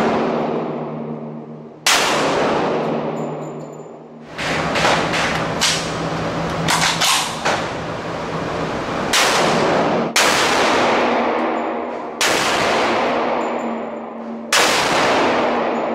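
KRISS Vector SDP pistol firing .45 ACP in an indoor range. Single shots ring out with long echoing decays, a second or more apart, and a quick string of shots comes near the middle.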